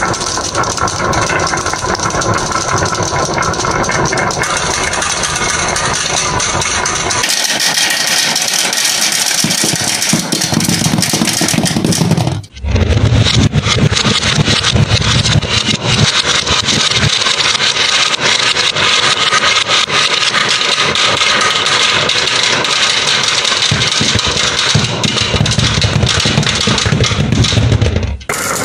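Dozens of glass marbles rolling down a wooden wavy-groove marble run: a dense, continuous clatter of marbles clicking against each other and the wood over a low rumble. It breaks off for a moment about twelve seconds in, then carries on.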